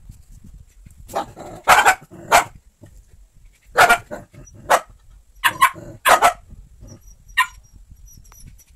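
Dog barking: about a dozen short, sharp barks in quick clusters of two or three.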